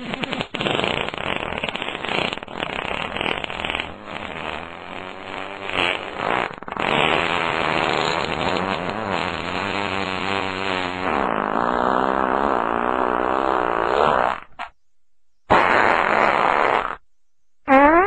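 Fart sounds: one long, raspy fart with a wavering pitch lasting about fourteen seconds, then after a short gap two brief farts near the end, the last one rising in pitch.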